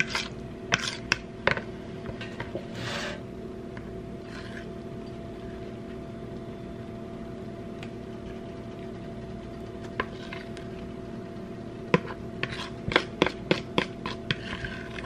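Mixing bowl, fork and metal loaf pan knocking and clinking as batter is scraped and poured from the bowl into the pan. A few sharp clicks come in the first few seconds, then a quick run of them near the end, over a steady background hum.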